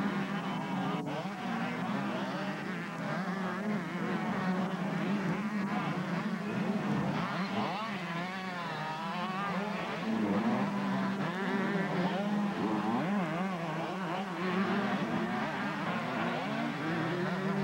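Several two-stroke 125cc motocross bikes racing, their engines revving up and down in overlapping rising and falling whines over a steady low hum.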